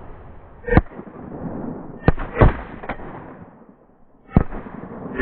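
Shotgun blasts fired at flushing pheasants, several in quick succession over about five seconds, each sharp and loud with a short tail.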